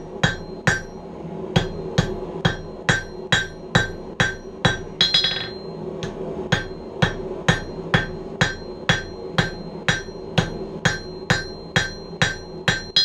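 Hand hammer striking red-hot steel on an anvil in a steady rhythm, about two blows a second, each with a short metallic ring. There is a brief break in the blows about five seconds in.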